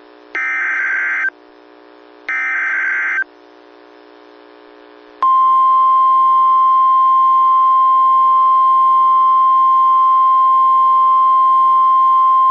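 NOAA Weather Radio emergency alert activation: the last two bursts of the SAME digital header, each a harsh data screech about a second long with a second's gap, then about five seconds in the steady single-pitch 1050 Hz warning alarm tone comes on and holds. It signals that a new warning message is about to be broadcast.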